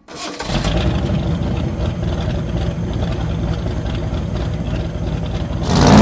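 A car engine starts and idles with a steady low rumble. Near the end it revs up loudly, its pitch climbing.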